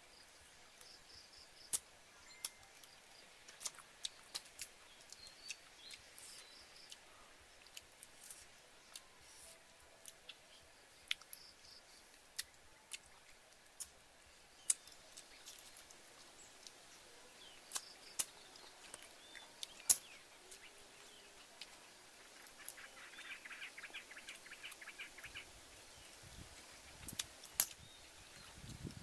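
Sparse, sharp clicks of small cooked shellfish shells being handled and opened one at a time for eating, with faint bird chirps in the background and a brief rapid trill a little over twenty seconds in.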